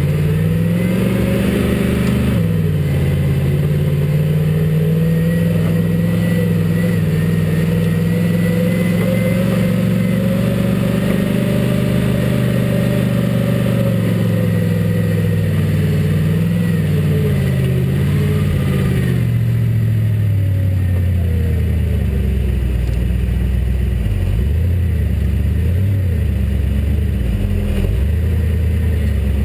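Off-road vehicle's engine working hard through deep snow. The revs climb in the first couple of seconds and stay high and wavering for about fifteen seconds, then drop off around twenty seconds in to a low, steady running note.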